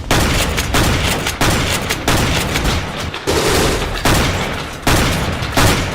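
Rapid gunfire-like firing in repeated bursts, a new burst starting about every three quarters of a second.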